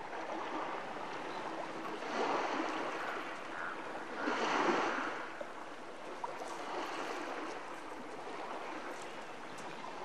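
Small waves washing onto a gravel shore: a steady rush of water that swells twice, about two seconds in and more strongly around four and a half seconds.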